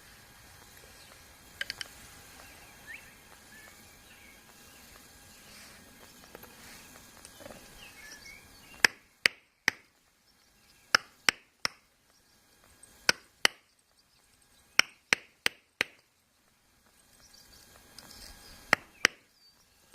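Hammer blows on a screwdriver used as a chisel against a geode, trying to crack it open: sharp strikes in quick groups of two to four, about fourteen in all, starting about halfway through.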